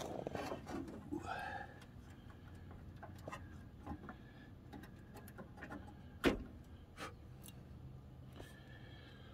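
Scattered small clicks and knocks of hands working on the headlight mounting of a Chevy S10 while the old sealed-beam headlights are being swapped for LEDs, with one sharper knock about six seconds in.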